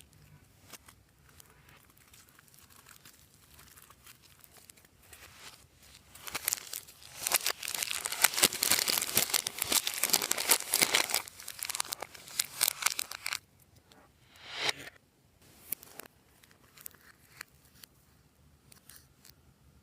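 Slime being kneaded and stretched with add-ins mixed through it, giving dense crackling and crinkling that builds up about a third of the way in and runs for several seconds. It is followed by a short swell and a few scattered clicks.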